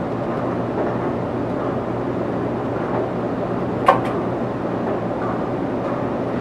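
Steady background noise with a low hum, and one sharp click about four seconds in.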